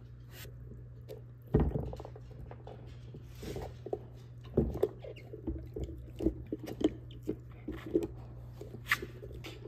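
A large dog chewing and mouthing a toy: irregular clicks, taps and gnawing sounds, with two louder thumps about one and a half and four and a half seconds in.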